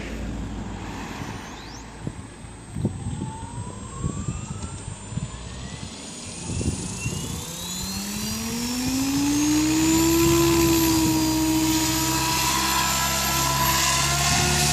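Electric RC helicopter, a Goblin 630 with a Scorpion 4035-560kv brushless motor, spooling up: a motor whine and rotor hum rising in pitch over several seconds. About ten seconds in it levels off into a steady, louder hum at flying head speed.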